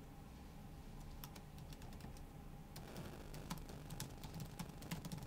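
Faint typing on a computer keyboard: irregular keystrokes begin about a second in and come faster in the second half.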